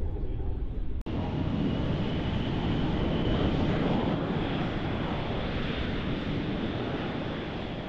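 Jet engines of Blue Angels F/A-18 Super Hornets running at taxi power: a steady rushing noise with a faint high whine. It cuts abruptly about a second in and comes back louder.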